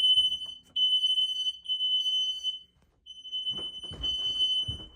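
Household smoke alarm going off during a test: a shrill, high-pitched beeping in long tones with short breaks, and a brief pause about halfway through.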